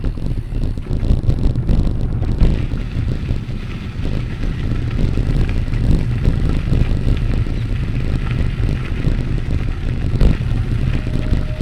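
Wind buffeting the microphone during a ride: a loud, uneven low rumble that goes on without a break, with a fainter steady hiss above it.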